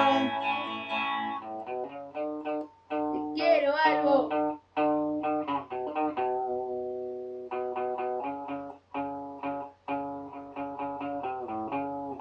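Electric guitar played on its own, picking single notes and short figures in a melodic line, with short breaks between phrases.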